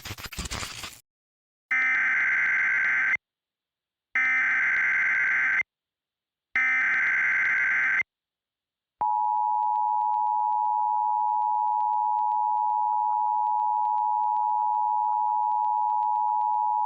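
Emergency Alert System signal: three identical SAME header data bursts, each about a second and a half long and a second apart, then the EAS two-tone attention signal held steady for about eight seconds, announcing an incoming civil danger warning. A short burst of noise comes right at the start.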